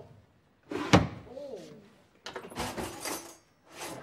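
A door bangs shut about a second in. Then come a couple of seconds of clattering as kitchen cupboards and drawers are rummaged through, and another bang at the very end.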